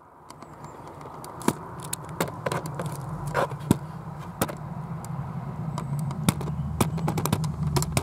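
Handling noise from a pole-mounted camera scraping and knocking against a stone wall as it is pushed into a cavity: an irregular string of clicks and knocks over a low rumble that grows louder about halfway through.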